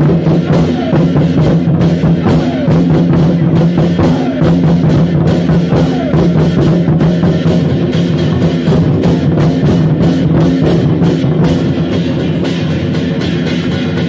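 Loud music with rapid, dense drumming over a steady low droning tone, with a few short falling pitch glides.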